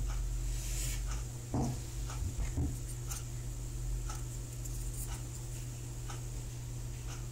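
Steady low electrical hum with scattered faint ticks, and a couple of soft handling knocks about one and a half and two and a half seconds in.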